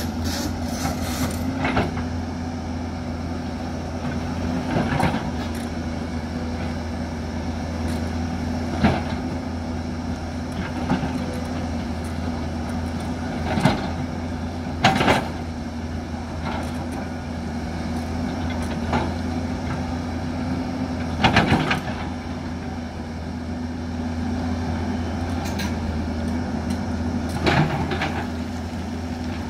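Hyundai crawler excavator's diesel engine running steadily as the bucket digs into rocky hillside soil, with sharp clanks and scrapes of the bucket on stone every few seconds, the loudest about halfway through and again about two-thirds of the way through.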